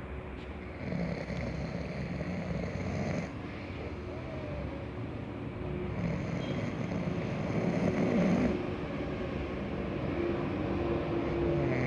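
Slow, regular snoring from a sleeper: long snoring breaths that swell and fade about every five seconds.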